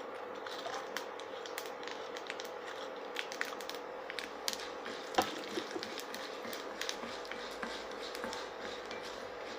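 Tempering seeds (mustard, fenugreek, cumin and urad dal) crackling and popping in hot oil in a pan: irregular sharp pops over a steady hum, with one louder knock about halfway through.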